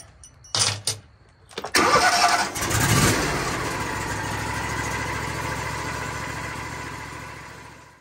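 Wood-Mizer LT-40 Super Hydraulic sawmill's engine cranking and catching, then running steadily. A couple of short clicks come first, and the running sound slowly dies away near the end.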